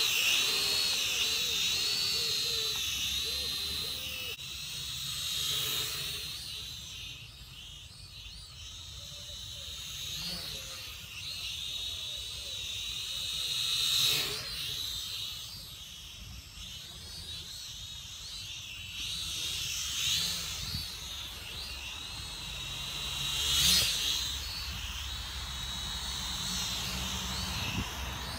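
SKRC Q16 toy quadcopter's small electric motors and propellers whining in flight, the pitch wavering up and down as the throttle changes. It swells louder about halfway through and again near the end.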